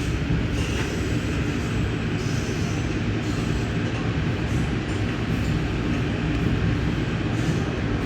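Steady rumble of a moving train heard from aboard an Amtrak passenger car, the wheels running on the rails.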